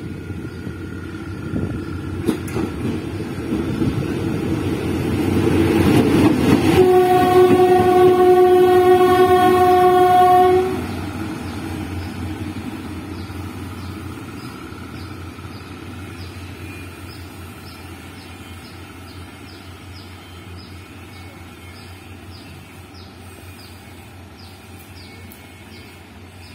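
A train approaching and passing close by, its rumble growing louder, with one steady horn blast of about four seconds at its loudest. The horn cuts off, and the rumble fades away.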